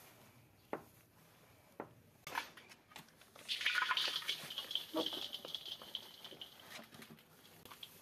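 Dry wheat straw and soil tipped from a tray into a metal basin: a rushing, rustling slide starting about three and a half seconds in, the loudest sound, with a faint ring from the basin. Before and after, hands rustle and stir the dry straw and soil, with a few light knocks.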